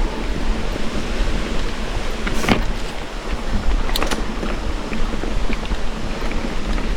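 Wind buffeting the microphone over bicycle tyres rolling on a rough dirt trail, with scattered small clicks and knocks from gravel and the bike, one sharper knock about two and a half seconds in.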